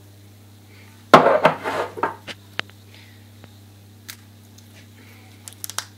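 Handling noise while mixing in a glass bowl: a loud scuffing rush about a second in, then a few scattered light clicks and taps, over a steady low hum.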